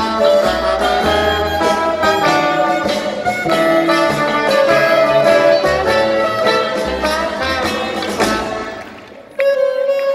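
Live jazz-style band playing an instrumental passage: trumpets and trombone over banjo and upright bass. Near the end the music dies away for a moment, then a single held note comes in suddenly.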